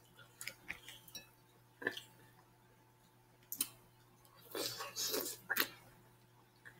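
A person chewing and smacking her lips while eating mussels, in short scattered bursts, with a louder cluster about two-thirds of the way through.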